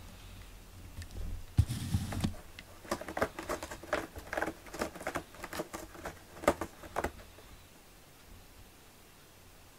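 A cat's claws on a corrugated cardboard scratcher: a soft thump, then about four seconds of quick, irregular scratching strokes that stop about seven seconds in.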